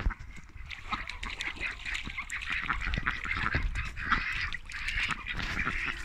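A flock of domestic ducks quacking, many short overlapping calls.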